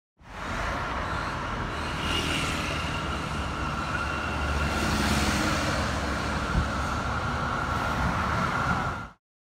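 A-class tram running along a street: a steady rumble of wheels and running gear with a steady high whine over it, mixed with street traffic. One sharp knock about two-thirds of the way through.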